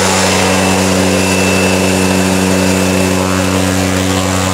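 Pilatus PC-6 Porter's turboprop engine running at low power as the aircraft taxis past: a steady, loud propeller drone with a thin high turbine whine over it.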